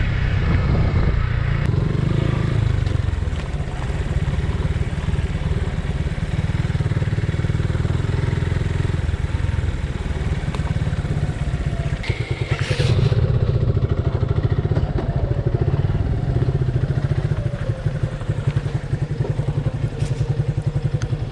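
Suzuki Gixxer 150's single-cylinder engine running steadily while riding, a low pulsing thrum. A short sharp noise comes about thirteen seconds in, after which the engine runs a little louder.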